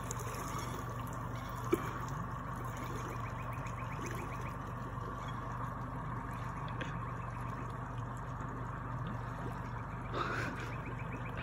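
Shallow water lapping and trickling faintly around a person's legs as they wade slowly, with one brief sharp click about two seconds in.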